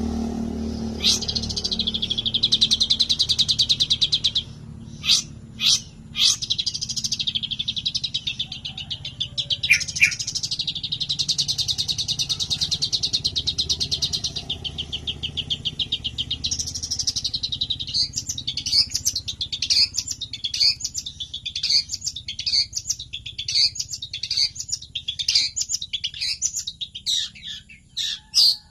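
A songbird singing long, very fast trills held for several seconds at a time, the prized 'tembakan' bursts of Indonesian songbird keepers. From about two-thirds of the way in, the trills give way to a quick run of separate high notes.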